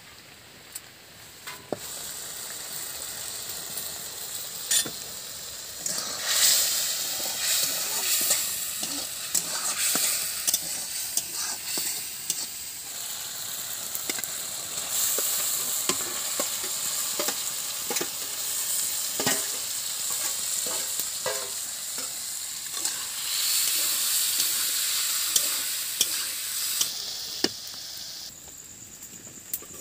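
Spice masala and small fish frying in hot oil in a steel kadai, sizzling, while a metal spoon stirs and scrapes with frequent clinks against the pan. The sizzling builds a few seconds in and eases near the end.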